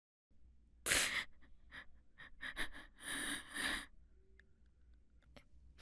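A woman crying: a sharp, loud breath about a second in, then short sniffs and shaky breaths, with a longer breathy sob around three seconds in.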